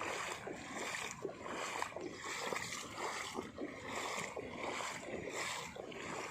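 Heavy rain falling, with many small irregular splashes of water.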